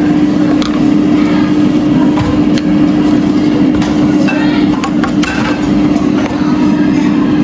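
Wooden spatula stirring eggs in a stainless steel skillet, scraping the pan with scattered short clicks, over a loud steady hum from a running appliance.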